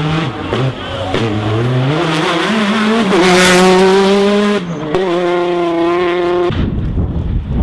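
Rally car engine accelerating hard, revs climbing and then held high and loud, with a brief break for an upshift about four and a half seconds in. About six and a half seconds in the engine note gives way to a rushing, wind-like noise.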